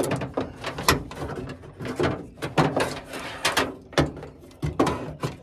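A Honda Element's cable-driven window regulator, its metal track and cables, clattering and scraping against the door's sheet-metal inner panel as it is worked out through the access hole. The sound is a busy, irregular run of clanks, clicks and rubs.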